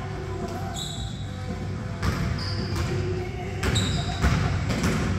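Basketball bouncing on a gym floor and players' sneakers squeaking in a large, echoing gymnasium during a pickup game. There are several irregular bounces, the loudest a little past the middle, and a few short, high squeaks.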